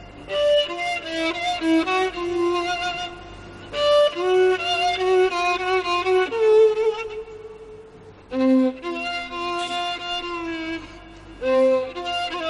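Background score: a violin playing a melody in phrases a few seconds long, with vibrato on the held notes.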